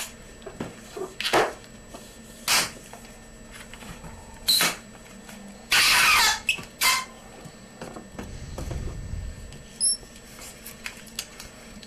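Latex modelling balloon squeaking and rubbing under the fingers as it is twisted and handled: a string of short squeaks, with a longer one about six seconds in.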